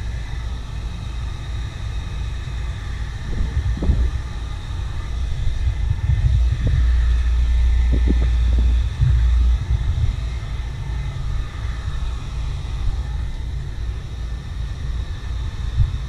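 Wind rumbling on the microphone, over a faint steady high whine from a heat gun being run over the kart body's graphics. A few light knocks come about 4 s and 7 to 8 s in.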